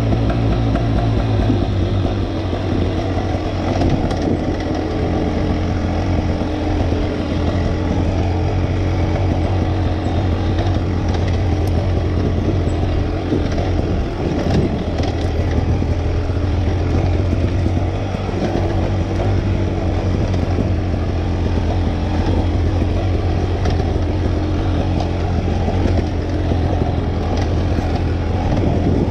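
Dirt bike engine running while the bike is ridden along a dirt trail, its note wavering up and down with the throttle.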